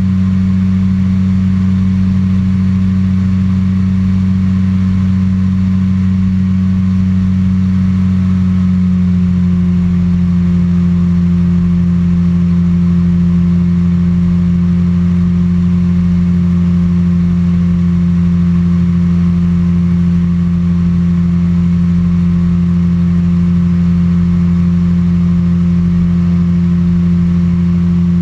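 Microlight trike's engine and pusher propeller droning steadily in cruising flight. About nine seconds in, the engine note shifts slightly lower and then holds steady.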